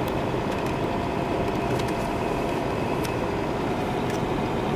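Steady engine and road noise heard inside a pickup truck's cab while driving, with a few faint ticks.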